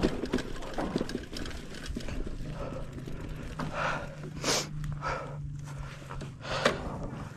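Mountain bike rattling and its tyres crunching over a rough, stony dirt trail. After that come a few heavy breaths, the loudest about six and a half seconds in.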